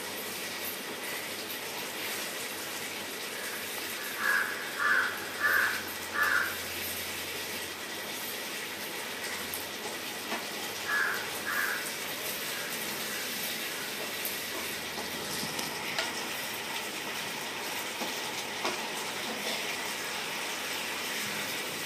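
Thick tamarind-ginger pickle sizzling and bubbling in a non-stick pan as it is stirred with a spatula, a steady hiss. Short loud calls cut through it, four in a row about four seconds in and two more about eleven seconds in.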